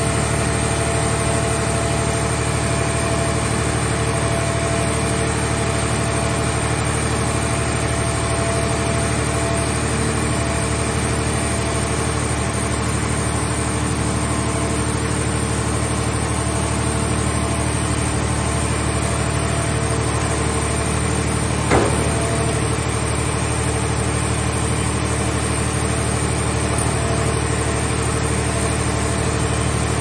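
Scrap car baler's power unit running steadily, a constant machine hum with a fixed droning tone, while its hydraulic grab lifts a car shell. A single short metallic knock sounds a little past two-thirds of the way through.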